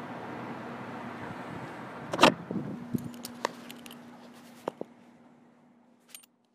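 A steady background hiss that fades away. About two seconds in comes a sharp loud clunk, then several smaller clicks and a faint steady low hum, before everything cuts to silence near the end.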